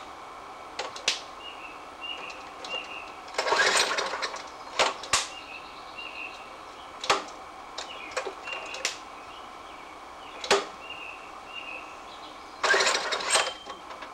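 A petrol lawn mower's recoil starter is pulled twice, each pull a short rasping whirr, and the engine does not catch: this is the mower's fault of not starting without priming. Sharp clicks come between the pulls.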